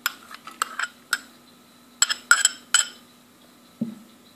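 Steel spoon clinking against the small serving bowl and the rim of a stainless steel mixing bowl while scraping leaves in: short ringing clinks in two quick clusters, then one duller knock near the end.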